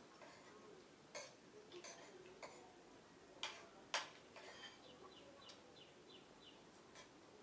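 A few sharp clicks and taps, five or so, the loudest about four seconds in, over a quiet background of short, repeated bird chirps.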